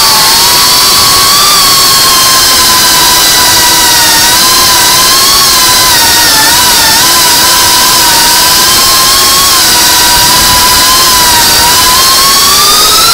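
FPV quadcopter's brushless motors and propellers whining loudly, heard from the onboard camera. The pitch wavers up and down as the throttle changes and starts climbing near the end.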